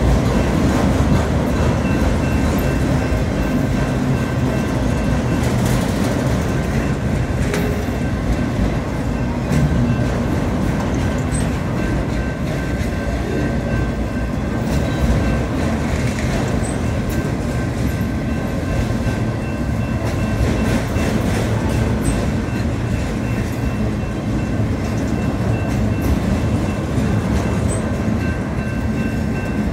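Freight train of autorack cars rolling past close by: a steady rumble of steel wheels on rail, with scattered sharp clacks from the wheels at rail joints.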